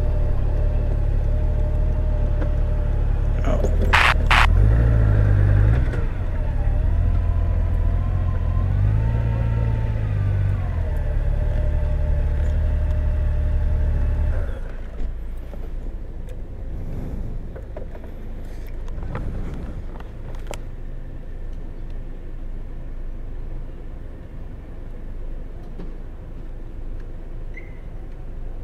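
Honda GL1800 Gold Wing's flat-six engine running at low speed, rising and falling in pitch twice, with a pair of sharp clicks about four seconds in. About halfway through the engine shuts off, leaving a much quieter background.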